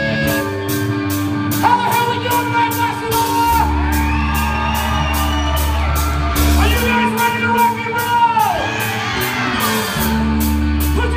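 Live hard rock band playing: electric guitar, bass guitar and drums with a steady cymbal beat, under a singer holding long shouted notes that bend at their ends.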